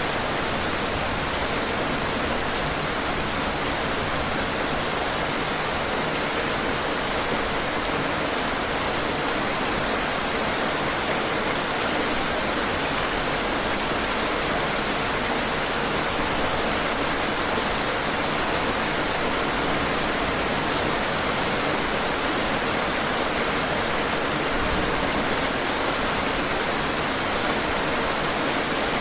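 Steady rain falling: a constant, even hiss with faint scattered ticks of drops.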